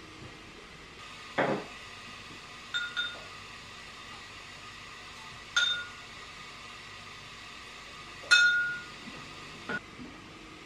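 Kitchen crockery being handled: a ceramic mug and a stainless-steel jug clinking against each other and the counter. There is a duller knock about a second and a half in, then several sharp clinks with short ringing, the loudest about eight seconds in, over a faint steady hiss.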